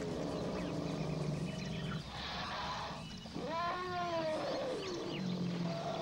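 Elephant trumpeting: one long call about three and a half seconds in that rises and then falls in pitch, with a shorter call near the end, over a low steady drone.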